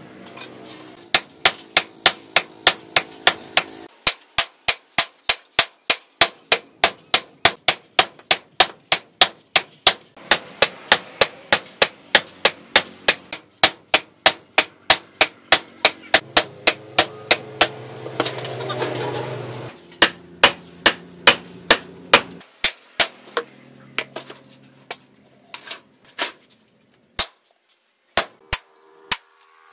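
Hand hammer striking red-hot steel on a post anvil while forging a cleaver blade: a fast, even run of sharp metallic blows, about three a second, that thins out to scattered strikes over the last several seconds.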